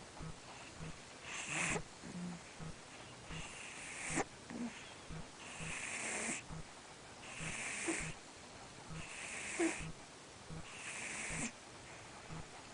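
American Shorthair cat snoring in its sleep: about six loud, wheezy breaths, one roughly every two seconds, some ending in a sharp catch.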